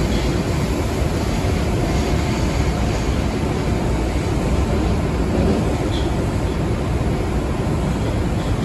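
Osaka Metro 30000A series subway train running, heard from inside the passenger car: a steady rumble of wheels on rail with a broad running noise that does not change.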